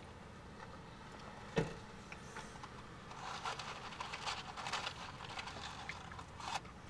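Faint scattered clicks and light rustling, with one sharper click about a second and a half in.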